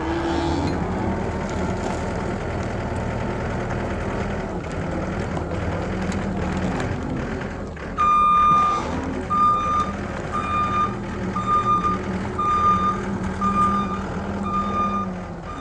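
John Deere 333G tracked skid steer's turbo diesel engine running steadily. About halfway through, its backup alarm starts beeping evenly, roughly one and a half beeps a second, as the machine moves in reverse.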